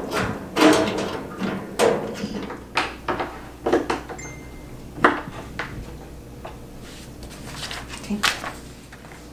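Knocks, clunks and rattles of fireplace surround panels and parts being handled and fitted together while a hand screwdriver is used. A sharp knock about five seconds in is the loudest; the handling thins out near the end.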